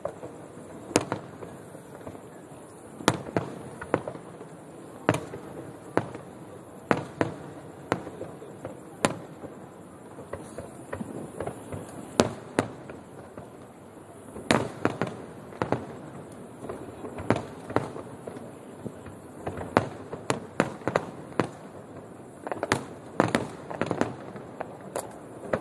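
Aerial fireworks bursting in a long, irregular series of sharp bangs, a few each second. The bangs come in quick clusters about halfway through and again near the end.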